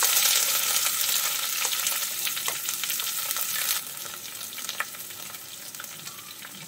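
Chopped onion and green chilli hit hot coconut oil in a nonstick kadai and sizzle at once. Light clicks of a wooden spatula scraping them off a plate run through the sizzle. The sizzle is loudest at first and settles lower after about four seconds.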